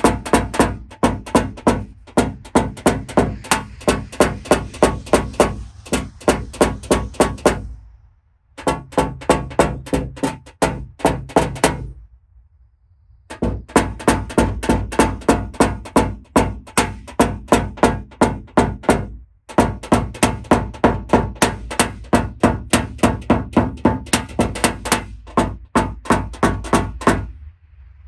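Background music with a steady percussive beat of about three strikes a second, stopping briefly a few times.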